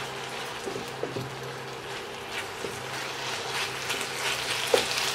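Chicken cubes sizzling steadily in hot oil in a nonstick frying pan while being stirred with a wooden spatula, with a few light scrapes and taps of the spatula against the pan.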